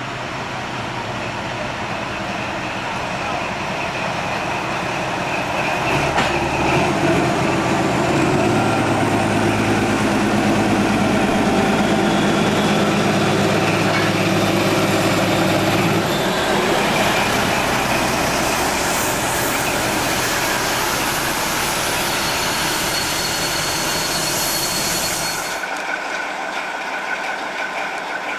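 Ex-DB class 221 (V200.1) diesel-hydraulic locomotive, running on only one of its two engines, draws in past close by with a steady engine drone that is loudest for about ten seconds as the locomotive body passes, followed by the lighter rumble of the coaches rolling by. About 25 seconds in the sound changes abruptly to the locomotive standing with its train.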